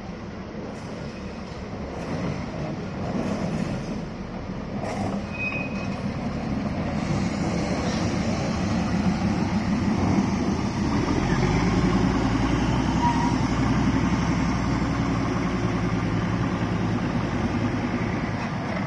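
Darjeeling Himalayan Railway toy train running, the sound growing louder, with a strong deep rumble setting in about eleven seconds in.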